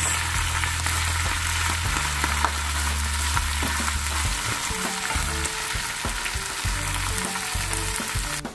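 Spinach leaves sizzling in olive oil in a nonstick frying pan, with small clicks and scrapes as the leaves are stirred. The sizzle cuts off abruptly near the end.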